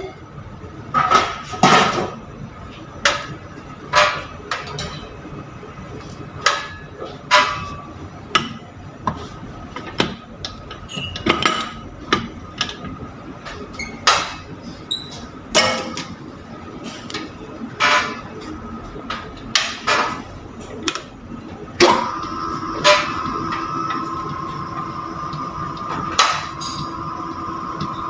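Electric bread-dough mixer kneading a batch of dough, with repeated sharp knocks roughly once a second over the motor's hum. About 22 seconds in, the motor hum grows louder and steadier.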